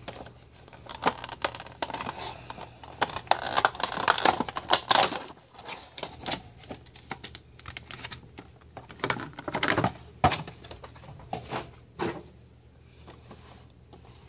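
Cardboard Funko Pop box and its clear plastic insert handled as the figure is unboxed: a run of rustling, scraping and sharp clicks, busiest around four and ten seconds in, trailing off near the end.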